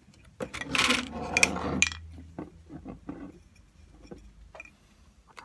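Hands handling a glass bottle and a yarn tassel on a table: a loud rubbing scrape lasting about a second and a half near the start, then softer rustles and small taps.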